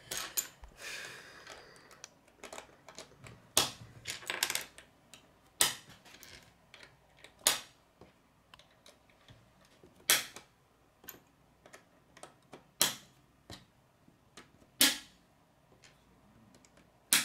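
Plastic K'nex rods and connectors clicking as they are snapped together and handled on a wooden tabletop: a sharp click every two to three seconds, with faint rustling of pieces near the start.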